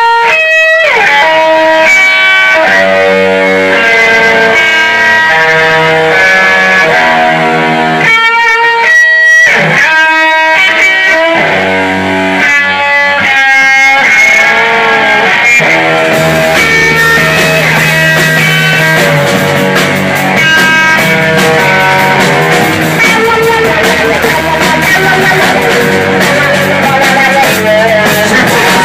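Live rock trio: an electric guitar plays a riff of ringing notes with brief stops, and about halfway through bass and drums come in with the full band playing loud.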